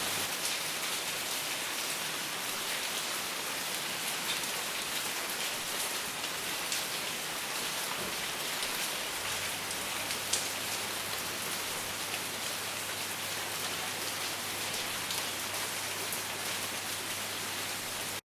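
Steady rain falling, a dense even hiss with individual drops ticking now and then. It cuts off abruptly just before the end.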